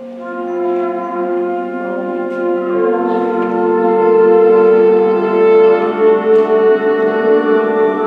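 Student concert band playing held chords, led by brass, that swell from soft to loud over the first few seconds and stay full through the rest.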